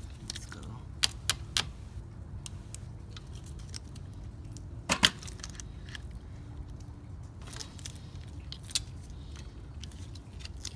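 Scattered sharp metallic clicks and clinks of a roller chain and hand tools being handled while fitting the chain's master link, the loudest about five seconds in.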